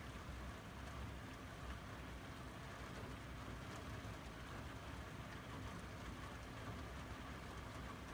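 Rain falling steadily, an even hiss with a low rumble underneath.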